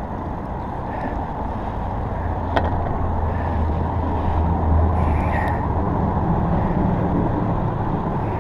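Low rumble of vehicle traffic crossing the bridge overhead, swelling through the middle, over steady wind and water noise. There is one sharp click about two and a half seconds in.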